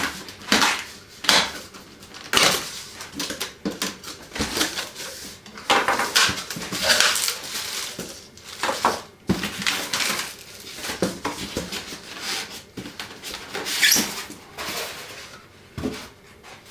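A cardboard box and its packaging being opened and handled, with irregular rustling, scraping, squeaks and knocks as the parts are lifted out.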